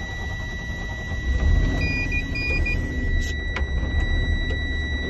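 Air-brake truck's diesel engine just started, running and picking up about a second and a half in to build air pressure back up. The low-air-pressure warning buzzer sounds a steady high tone throughout, a sign that the air tanks are still below about 60 psi after the brakes were fanned down. A few short beeps come about two seconds in.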